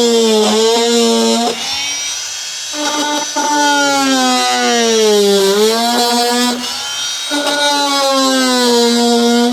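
Small high-speed handheld power tool whining as it cuts plastic, its pitch sagging when pressed into the work and rising again as it frees up. It runs in three stretches, dropping away briefly about a second and a half in and again past the six-second mark.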